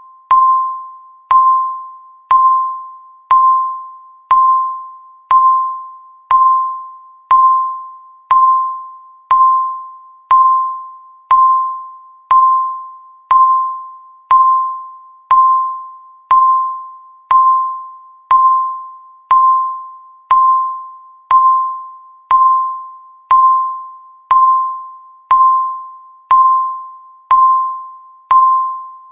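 Countdown timer's tick sound: a single bell-like electronic tone struck once a second, each strike ringing out and fading before the next, evenly paced.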